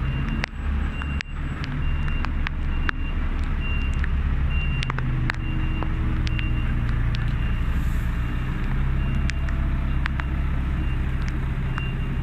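Heavy flatbed lorry's diesel engine running, with a reversing alarm giving regular high beeps, and a few scattered sharp clicks.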